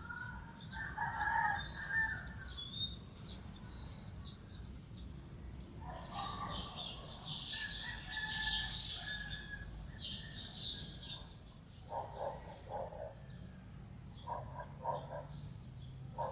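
Roosters crowing several times: about a second in, again around six seconds in, and twice near the end. Over them, small birds give high, thin chirps and a quick warbling trill.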